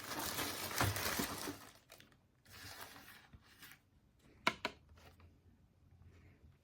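Plastic packaging crinkling and rustling as items are handled out of a box, dying away about a second and a half in; then a few faint rustles and two light clicks near the middle.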